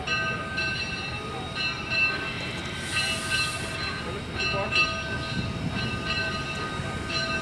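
Steam-hauled passenger train pulling out, with the low rumble of the coaches rolling and a bell ringing over and over, about twice a second. A short hiss, likely steam, cuts in about three seconds in.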